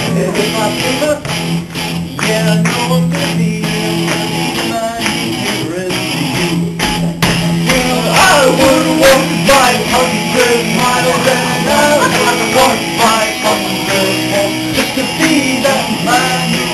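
Rock song with guitar and singing; the singing comes in more strongly about halfway through.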